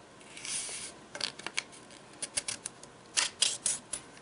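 A sheet of green origami paper being folded and creased by hand. A soft sliding rustle comes about half a second in, then three runs of short, sharp scrapes as fingers press the fold flat.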